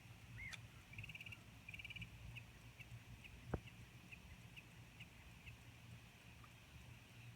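Quiet outdoor ambience. A small animal gives repeated short high chirps and pulsed trills that thin out after the first few seconds. A single sharp knock sounds about three and a half seconds in.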